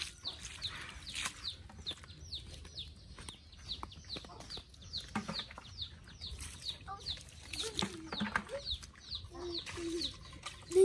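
Birds peeping: a steady run of short, high chirps that fall in pitch, several a second.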